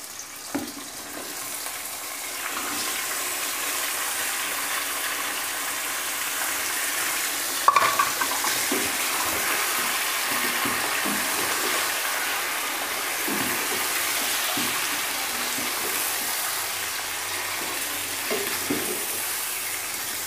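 Raw chicken pieces sizzling in hot oil with garlic-ginger paste in a nonstick karahi, stirred with a wooden spoon. The frying hiss builds over the first couple of seconds and then holds steady, with one sharp knock about eight seconds in.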